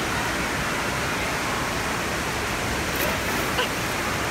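Steady rushing noise of running water filling an indoor water-park pool hall, with a small splash about three and a half seconds in as a child falls off a floating pad into the pool.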